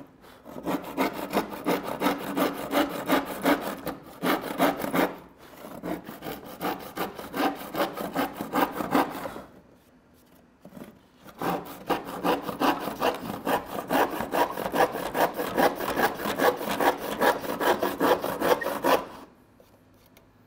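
Handsaw cutting through the wooden side of a cable reel in quick, even back-and-forth strokes. It pauses for about a second and a half near the middle, then saws on and stops shortly before the end.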